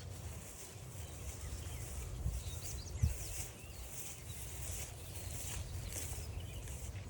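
Several songbirds chirping and singing, with the crunch of footsteps on a trail and a thump about three seconds in.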